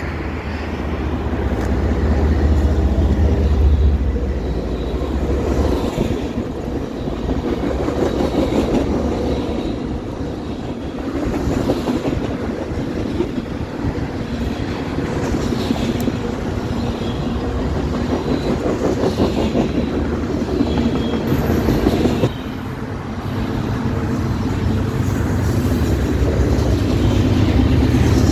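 Freight train passing close by: the lead diesel locomotive's engine runs past at the start, then the freight cars roll by with steady wheel clatter on the rails. A second, mid-train diesel locomotive's engine comes up again near the end.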